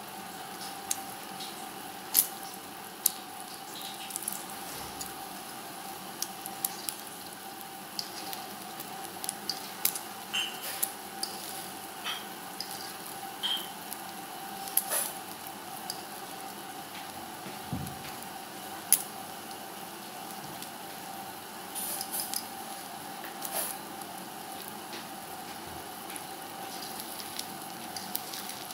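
Egg omelette frying in oil in a wok: a steady sizzle, with scattered sharp clicks and scrapes as a metal fork works at the omelette's edge against the pan.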